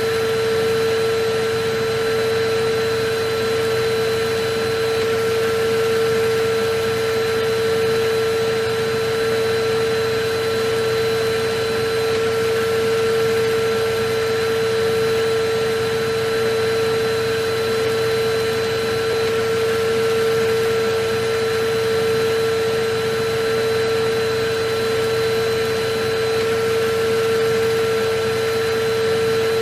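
Electric vacuum cleaner running steadily: a constant rush of air with a steady motor hum.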